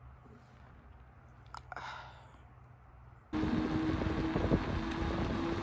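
Faint outdoor quiet, then about three seconds in a sudden loud rush of wind on the microphone and tyre noise from a bicycle rolling along a wet paved road, with a faint steady hum under it.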